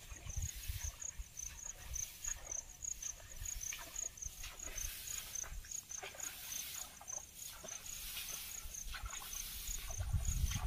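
An insect chirping steadily in the paddy field: a high, short note repeated about two to three times a second, over faint scattered patter and rustling.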